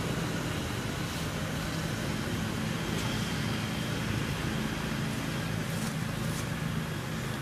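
Steady low engine drone of motor traffic, holding level throughout, with a couple of faint clicks near the end.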